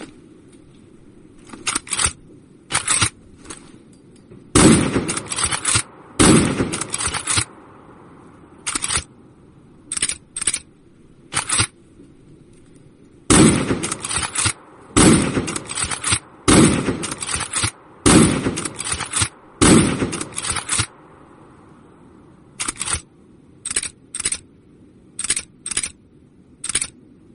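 Mosin-Nagant M39 rifle sound effects, a 7.62×54mmR bolt-action rifle: a string of sharp shot sounds at irregular spacing, some single and some in quick clusters, with quiet gaps between.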